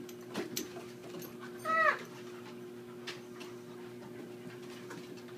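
Two dogs at play: one short, high yelp with a rising-then-falling pitch a little under two seconds in, amid scattered light clicks and scuffles, over a steady low hum.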